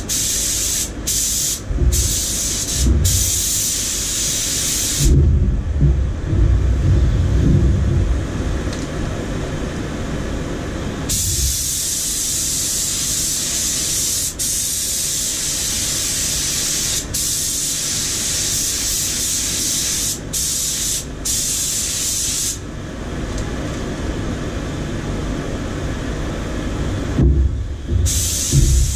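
Compressed-air paint spray gun hissing as it sprays paint onto a car. It goes in short on-and-off bursts, then one long pass of about ten seconds, then more short bursts near the end. A low rumble runs underneath.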